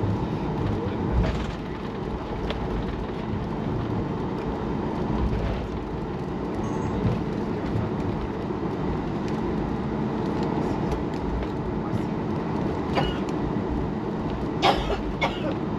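Cabin noise of a Boeing 737 MAX taxiing: a steady rumble from its CFM LEAP-1B engines at idle and from the airframe rolling over the taxiway. Two sharp clicks come near the end.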